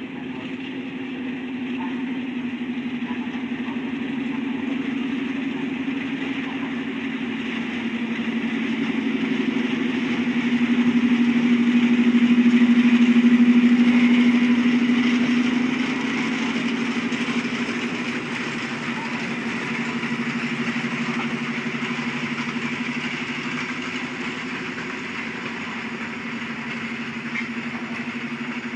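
An SM42 diesel shunting locomotive's engine runs steadily as the locomotive slowly hauls a train of passenger coaches past. It grows loudest about halfway through as the locomotive passes closest, then eases off while the coaches' wheels roll by on the rails.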